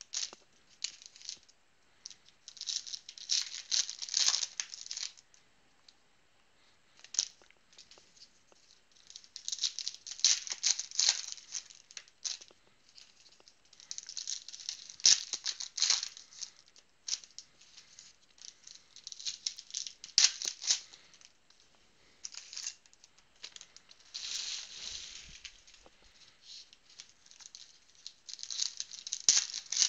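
Foil trading-card pack wrappers crinkling and tearing as packs are opened and the cards handled, in irregular bursts of rustling with short quiet gaps.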